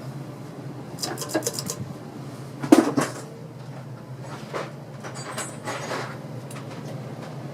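Fasco Charleston ceiling fan motor running with a steady low hum, overlaid by a quick run of clicks about a second in, a louder knock near three seconds and a few lighter clicks later.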